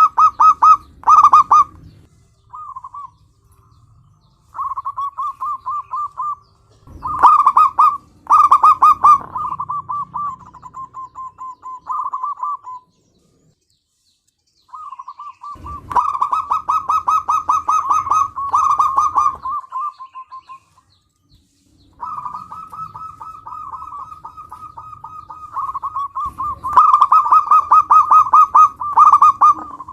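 Zebra dove (perkutut) cooing: phrases of rapid, stuttering notes, some much louder and fuller than others. There are brief pauses between phrases, the longest about 13 and 21 seconds in.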